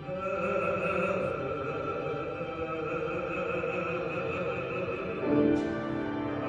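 Operatic singing: a voice holds one long note, then moves down to a lower note about five seconds in.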